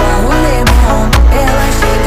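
Pop music with a steady bass beat and a sung vocal line.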